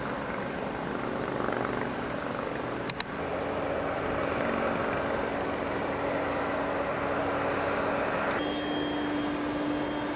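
Diesel engines of heavy construction equipment, a crawler crane among them, running steadily with a low drone. There is a sharp click about three seconds in, and a thin high whine joins near the end.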